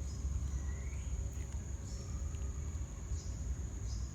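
Insects calling in a steady, unbroken high-pitched drone, like crickets, over a low rumble, with a short rising chirp about a second in.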